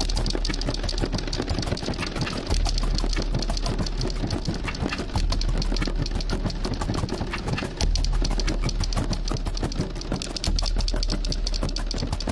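Electronic improvisation built from granular-sampled loops of percussion: a dense, rapid clicking texture over a low bass tone that switches between two notes about every two and a half seconds.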